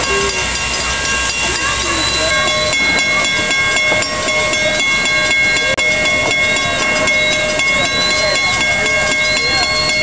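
Pere Marquette 1225, a Lima-built 2-8-4 Berkshire steam locomotive, hissing steadily as steam escapes around its cylinders, with faint steady tones riding on the hiss.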